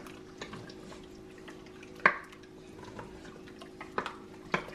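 Canned peach slices dropped by hand into melted butter in a stainless steel saucepan: a few wet plops and light clicks against the pot, the loudest about two seconds in, over a steady low hum.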